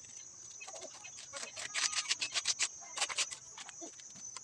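A trowel scraping and tapping as cement mortar is scooped from a plastic bucket and worked onto bricks: a run of quick scrapes and clicks, busiest in the middle. A steady thin high whine runs underneath.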